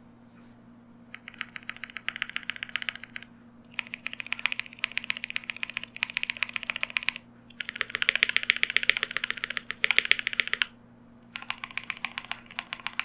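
Typing on a KBD67 Lite mechanical keyboard with Lavender switches and GMK Red Samurai doubleshot ABS keycaps: fast runs of keystrokes in four bursts, with short pauses between them.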